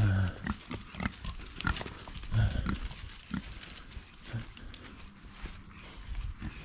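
Pigs grunting, a few short low grunts, amid scattered light knocks and clatter.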